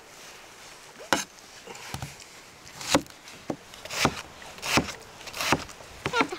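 Repeated chopping strikes on wood, about eight blows at uneven intervals of roughly three-quarters of a second.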